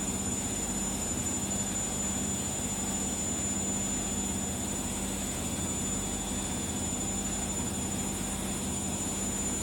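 Washing machine running with a steady hum.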